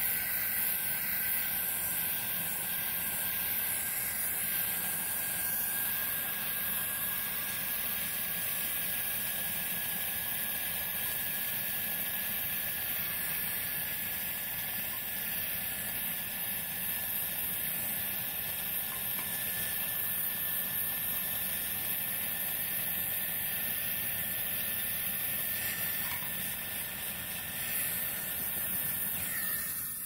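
Brazing torch flame hissing steadily on a copper refrigerant line, with a faint steady whistle.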